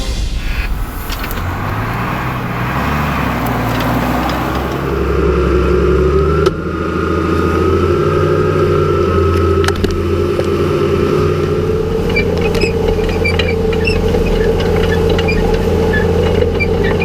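New Holland M115 Turbo tractor's six-cylinder turbo-intercooled diesel running steadily, its pitch rising about five seconds in and then holding, with scattered small ticks in the last few seconds.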